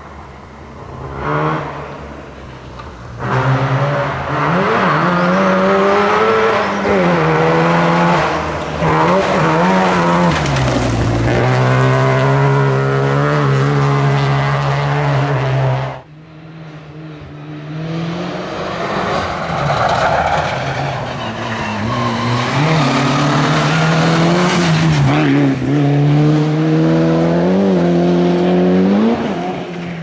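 Rally car engines driven hard: one car comes closer, its revs climbing and dropping through gear changes. After a sudden cut, a second car comes closer, revving hard and shifting.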